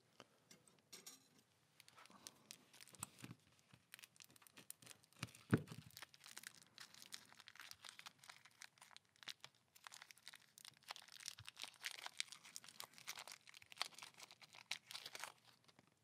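Small plastic zip bag crinkling and tape tearing as a taped-up key is unwrapped by hand: a long run of faint, irregular crackles, with one louder knock about five and a half seconds in.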